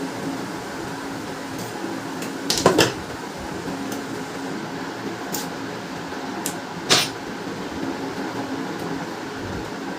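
A few sharp clicks and knocks of hard plastic parts being handled on an opened laser printer: a short cluster about two and a half seconds in, and a single loud click about seven seconds in, with fainter ticks between, over a steady low hum.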